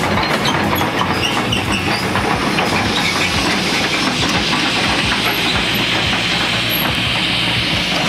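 Tata Hitachi hydraulic excavator running close by: a steady hissing din with a rapid, uneven clatter of metal parts over the diesel engine.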